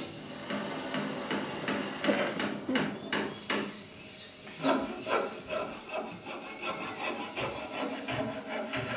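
Surgery sound effects for a face operation: knocking, scraping and rasping, then a high wavering squeal from about six and a half seconds in.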